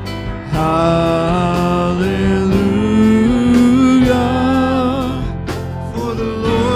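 Live church worship band music: voices singing a slow melody in long held notes over the band's accompaniment, getting louder about half a second in.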